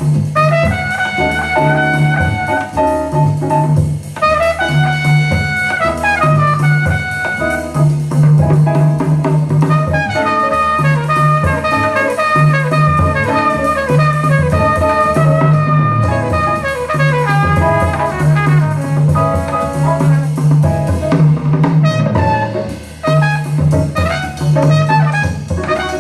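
Jazz-blues recording playing: horns carry the melody over a drum kit and a pulsing bass line.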